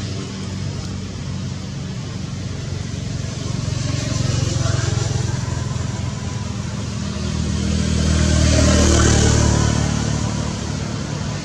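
A motor vehicle's engine running, with a steady low hum that swells louder about eight to nine seconds in, as if passing close by.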